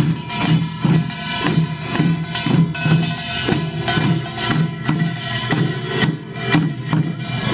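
Pungmul band of Korean folk drums and gongs playing a steady driving rhythm, with deep drum strokes about twice a second under a constant clangour of metal.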